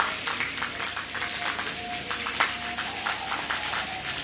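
Torrential rain falling steadily: a dense hiss of rain dotted with many sharp drop splashes.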